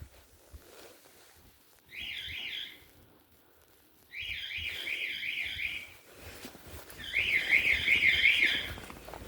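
Fire alarm sounder going off after the pull station is pulled: a high-pitched electronic tone that sweeps upward again and again, about four times a second. It comes in three stretches of one to two seconds with quiet gaps between, the last two longer and louder.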